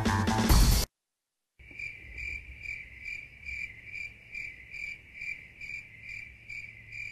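Background music cuts off about a second in. After a short silent gap, an insect chirps steadily, about two and a half high chirps a second, over a faint low background hum.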